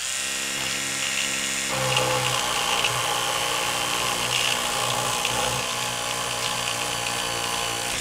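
Electric toothbrush with a round oscillating head buzzing steadily as it scrubs textured laptop case plastic; its tone shifts slightly about two seconds in.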